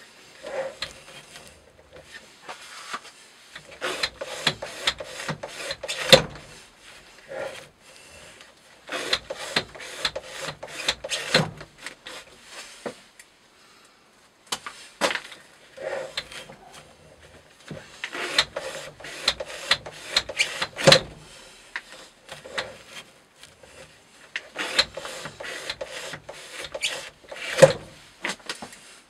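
Knife blade cutting repeatedly through thick natural-fibre rope in a rope-cutting test rig: clusters of crisp scraping, crunching strokes as the fibres are sliced, with short pauses between runs of cuts.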